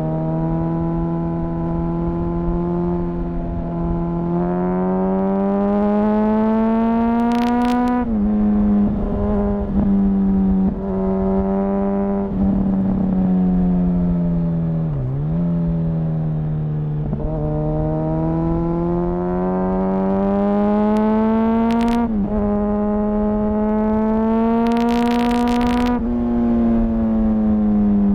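2004 Honda CBR1000RR Fireblade's inline-four engine pulling hard through the gears, heard onboard. The engine note climbs in pitch and then drops at each upshift, several times over. Partway through it dips sharply and comes back as the rider rolls off and gets back on the throttle.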